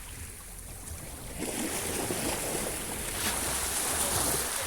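Sea waves washing onto the shore: the wash swells about a second and a half in and stays strong until near the end.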